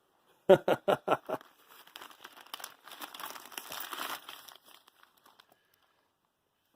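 Paper or plastic wrapping crinkling and rustling for about three seconds as wrapped packages from the strong box are handled, then fading out. A brief cluster of sharp handling sounds comes just before it.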